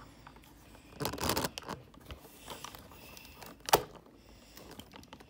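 Rustling and handling noise, with a short rustling burst about a second in and a single sharp click nearly four seconds in.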